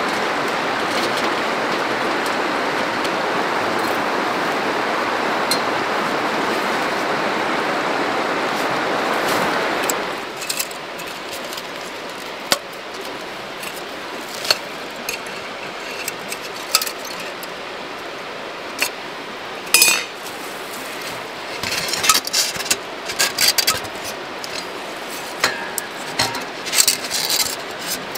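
A steady rushing noise for about the first ten seconds, which stops abruptly. Then a metal stove chimney pipe and a spark-arrestor cap clink and knock against each other as they are handled and fitted together: scattered single taps, then a busier run of clinks near the end.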